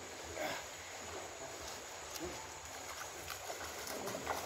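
Shallow river water running steadily, with a brief sound about half a second in. Near the end come splashes of a person wading into the water.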